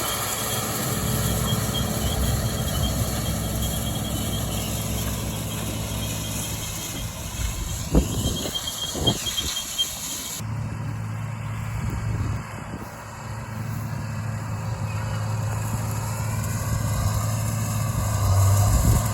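Tractor engine running steadily while pulling a rotary hay rake, a low, even hum, with two sharp knocks about eight and nine seconds in.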